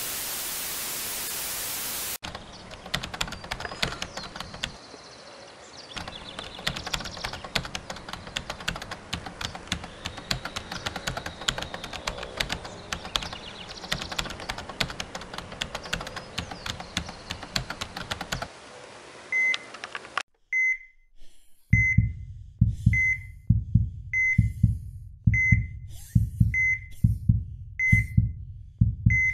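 A burst of TV-style static, then a long stretch of crackling hiss full of sharp clicks. About twenty seconds in, a hospital heart monitor starts beeping about once every 1.2 seconds, and a heartbeat thump soon comes in with each beep.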